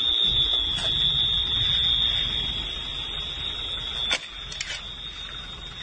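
A steady, high-pitched electronic alarm tone sounds without a break, over low rumbling noise and a few sharp clicks. The low rumbling drops away about four seconds in, while the tone goes on.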